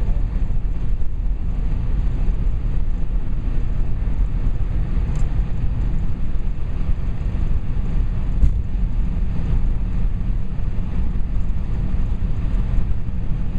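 Steady low rumble of travel on the move: a vehicle running, with wind and road noise, unbroken throughout.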